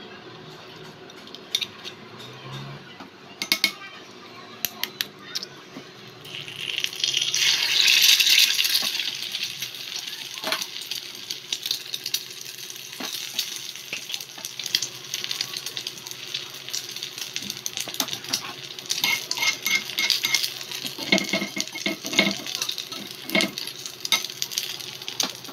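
Egg frying in oil in a miniature aluminium frying pan: a loud burst of sizzling about seven seconds in, then steady sizzling with small metal clinks and scrapes of a tiny spatula against the pan.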